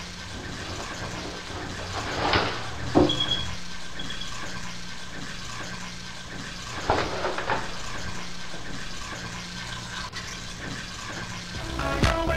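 Water running steadily in a small bathroom, with a few knocks about two, three and seven seconds in. Music with a beat comes in just before the end.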